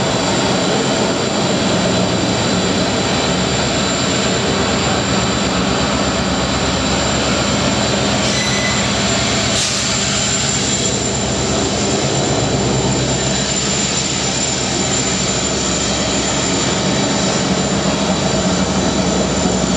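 Indian Railways WDG4 diesel locomotive's 16-cylinder two-stroke engine running steadily as it hauls a freight train past and beneath, with a steady high whine over the engine sound. A brief sharp click comes about halfway, as the locomotive passes directly underneath.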